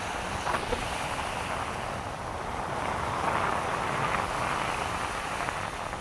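Small waves washing onto a sandy beach, with wind rushing over the microphone; the surf swells for a couple of seconds near the middle.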